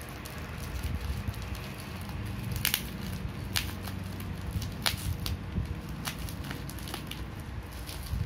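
Clear plastic packaging crinkling and crackling as it is handled and pulled open, with a few sharp crackles scattered through, over a low rumble of handling noise.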